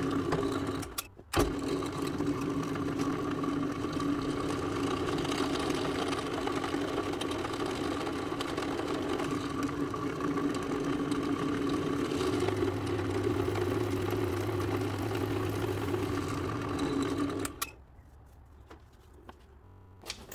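Pedestal drill press motor running steadily while its bit drills holes in a blue plastic sheet, with a brief break just after a second in. The motor cuts off suddenly about 17 seconds in.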